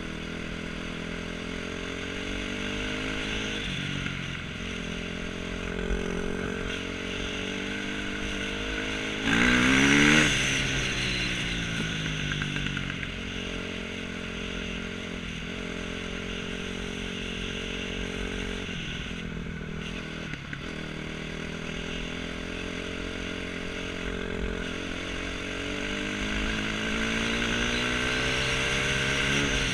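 2008 KTM 250 SX-F's four-stroke single-cylinder engine running under way, its pitch climbing and dropping as the rider works the throttle and gears. A loud burst of throttle comes about ten seconds in, with the pitch rising sharply.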